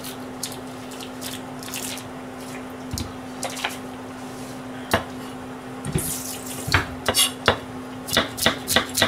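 Kitchen knife cutting an onion on a white cutting board: scattered knocks and clicks of handling, then near the end a run of quick, even chopping strokes, about three a second. A steady low hum runs underneath.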